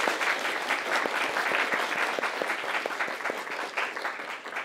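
A roomful of people applauding, the clapping thinning out near the end.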